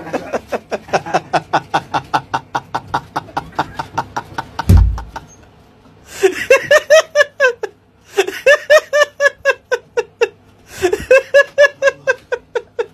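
A person laughing hard in long bouts of rapid, rhythmic 'ha-ha' pulses, about six a second, broken by short pauses. A loud thump sounds about a third of the way in.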